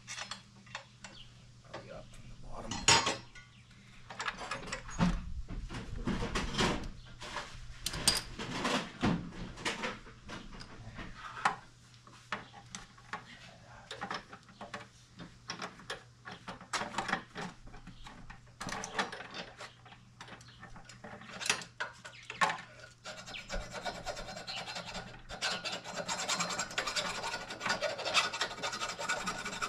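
Parts and hand tools being handled during mini bike assembly: irregular knocks, clicks and scraping, turning from about two-thirds of the way in into a steadier rubbing and scratching.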